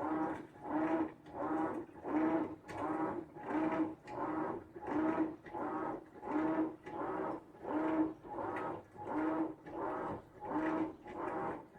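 Whirlpool top-load washing machine agitating its wash load on the express cycle: a steady rhythm of swishing strokes with a motor hum, about three strokes every two seconds.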